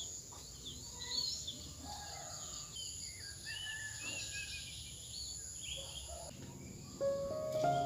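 Small birds chirping and twittering in short calls over a steady high insect buzz. Music comes in about seven seconds in.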